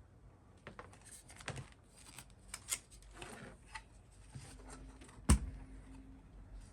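Small clicks and rustles of parts and wiring being handled inside an open oscilloscope chassis, with one sharper knock about five seconds in.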